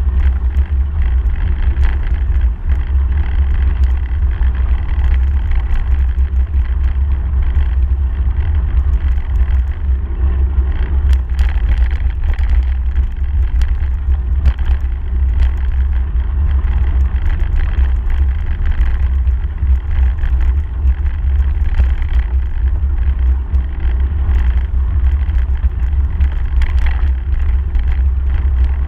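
A bicycle riding fast on a gravel path, heard through a handlebar-mounted camera: a steady deep rumble of wind and vibration on the microphone over the hiss of the tyre on gravel. Small clicks are scattered throughout.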